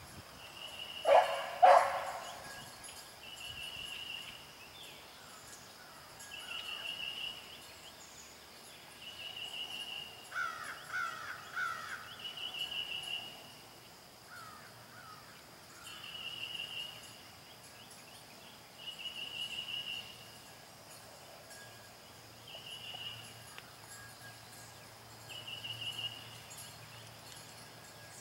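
Two loud crow caws about a second in, over a thin high note that repeats about every three seconds and a few softer wavering calls near the middle.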